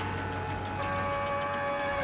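Layered steady droning tones over a low hum, the chord shifting about a second in: a sustained drone from an experimental cassette recording.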